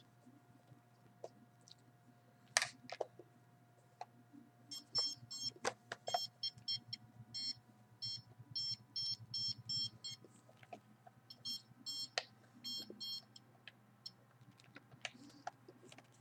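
Handheld RF signal detector beeping in runs of short, high electronic beeps, about three to four a second, with a few sharp handling clicks and a faint steady hum.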